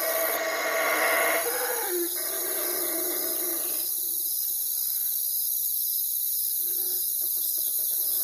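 Owl hooting: a drawn-out call in the first two seconds and a short hoot near the end. Behind it, insects chirp in a steady, evenly pulsed chorus.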